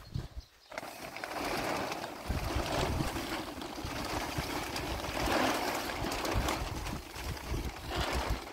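Heavy mountain rain with wind, a rushing noise that starts abruptly about a second in and swells and eases several times.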